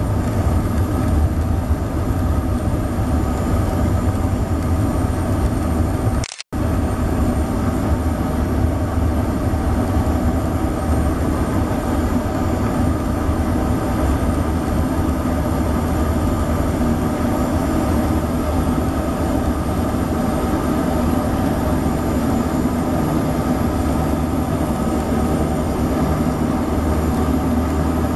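Let 410's twin turboprop engines running steadily as the aircraft taxis, a loud low drone with a thin high turbine whine over it, heard close to the engine. The sound cuts out for a split second about six seconds in.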